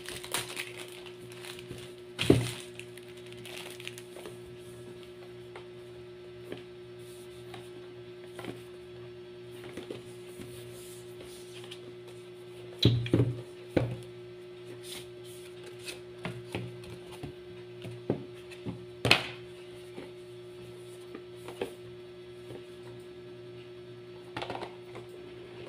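Handling noises of a cardboard cube box: plastic shrink-wrap being peeled off and crinkled, then scattered taps and knocks as the box is turned over in the hands, with a few sharper knocks about two seconds in and around the middle.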